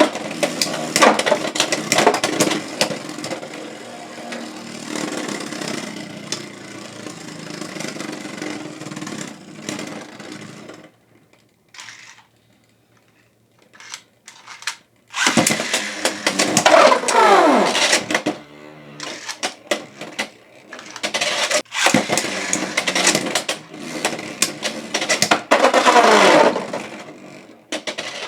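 Beyblade X spinning tops, Draciel Shield 7-60D against another X build, spinning and clashing in a plastic stadium with rapid clicks and rattles. The action stops about eleven seconds in. New rounds start about fifteen and about twenty-one seconds in, each with a whine that falls in pitch under the clatter.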